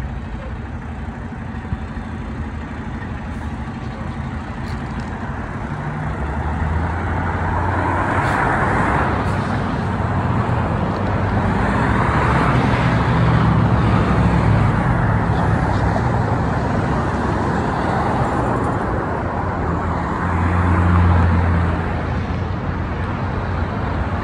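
Road traffic on a busy city street: cars and other vehicles passing one after another with a low engine hum and tyre noise. It swells as each vehicle goes by, getting louder after the first few seconds, with the strongest passes about a third of the way in, around the middle and near the end.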